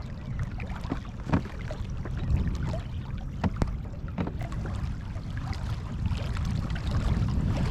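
Kayak on open water: a steady low rumble of wind and water against the hull, broken by a few sharp knocks.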